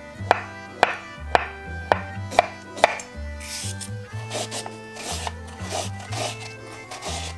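A kitchen knife knocking on a wooden cutting board about twice a second while slicing avocado. About three seconds in, it changes to a vegetable peeler scraping along a cucumber in repeated rasping strokes, shaving it into ribbons.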